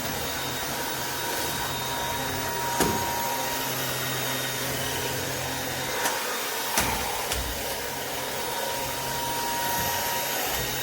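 Cordless stick vacuum cleaner running steadily with a constant whine, with a few short clicks or knocks partway through.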